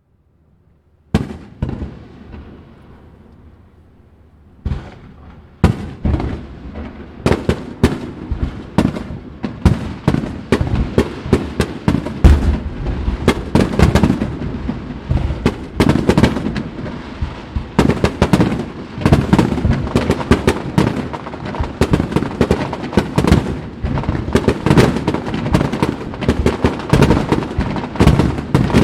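Fireworks shells bursting in a finale barrage: a single boom about a second in, another near five seconds, then rapid, overlapping bangs with echoing tails that build and keep coming.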